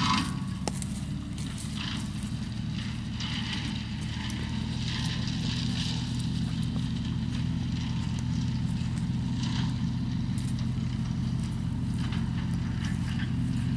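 Tractor-mounted harvester-chipper running under load as it cuts and chips rows of thin saplings: a steady tractor engine drone with an irregular crackle of stems being cut and chipped on top. It grows slightly louder as the machine comes closer.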